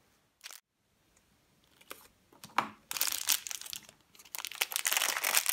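Shiny foil toy wrapper being torn open and crumpled in the hands. After a quiet start with one short click, crinkling and tearing begin about halfway through, pause briefly, then carry on.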